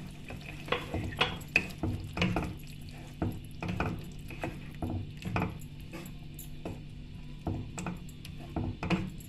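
Wooden spatula stirring chicken pieces through a milky gravy in a non-stick pot, scraping the pan, with irregular knocks of the spatula against the pot a little over once a second.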